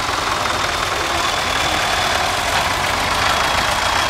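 Vintage tractor engine running steadily at low revs as the tractor drives slowly past close by.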